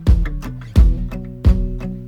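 Background music with a steady beat, about one strong beat every 0.7 seconds, and sustained notes between the beats.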